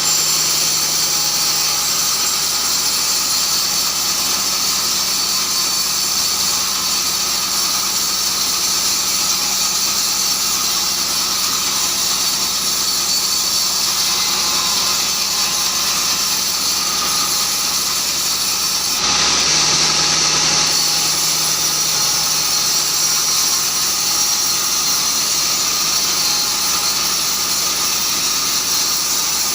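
Sawmill bandsaw cutting keranji hardwood: a steady, high-pitched whine and hiss from the blade, briefly louder about two-thirds of the way through.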